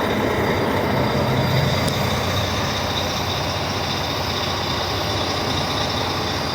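Air-braked truck's diesel engine idling steadily.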